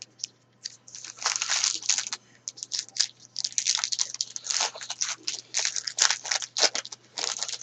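Trading-card pack wrapper being torn open and crinkled by hand, an irregular run of crackling rustles.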